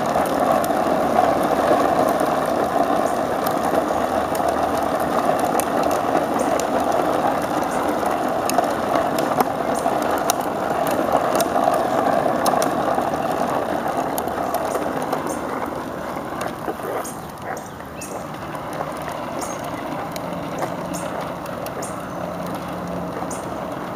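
Hard plastic wheels of a toddler's ride-on toy rolling over asphalt as it is towed along: a steady rough rumble with small clicks, quieter after about fifteen seconds.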